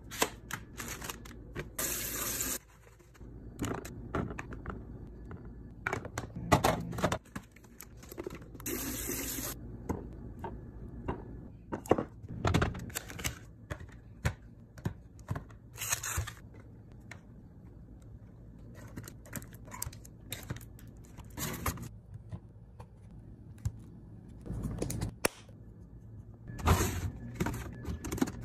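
Clear plastic fridge bins and lidded food containers being handled and set down, with many clicks and knocks, and a few short spells of tap water running into a sink.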